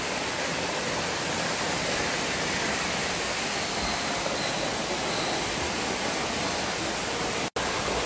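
Steady, even rush of falling water from a waterfall, cutting out for an instant near the end.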